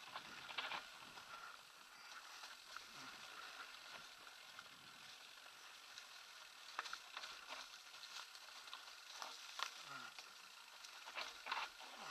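Kona Satori 29-inch mountain bike rolling along a leaf-covered trail: faint rustle and crunch of the tyres over dry leaves, with scattered clicks and rattles from the bike over the bumps.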